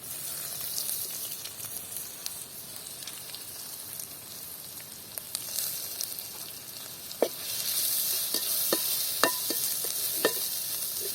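Shellfish meat sizzling as it goes into hot tempered oil and fries steadily. From about seven seconds in, a spoon clinks and scrapes against the pot as it is stirred, and the sizzle grows louder.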